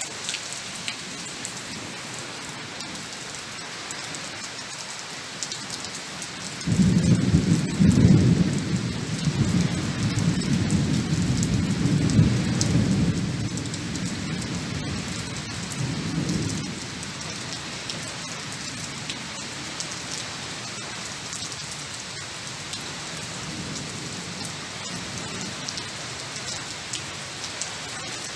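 Steady rain falling. About a quarter of the way in a low rumble of thunder sets in suddenly, swells, then dies away over about ten seconds, leaving the rain alone again.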